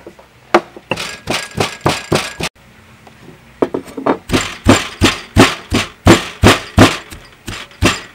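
Stone pestle pounding sliced lemongrass and herbs in a heavy stone mortar. A quick run of dull thuds comes first, then a pause of about a second, then steady pounding at about three strikes a second.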